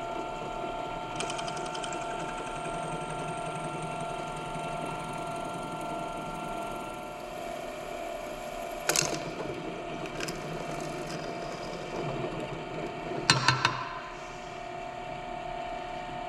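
Benchtop drill press running with a steady motor whine while a cobalt bit drills through a small, hard fitting held in locking pliers. A few sharp clicks and knocks come partway through and again near the end.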